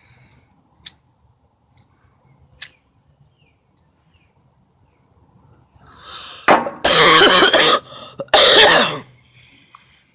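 A woman coughing twice, loud and harsh, after a rising breath in; two faint sharp clicks come earlier.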